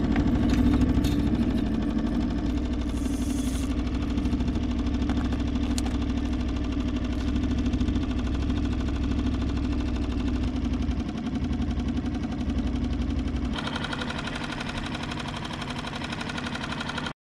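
3.5 hp Mercury outboard motor running steadily at trolling speed with a putt-putt sound. About three-quarters of the way through, its sound turns thinner, losing its low end.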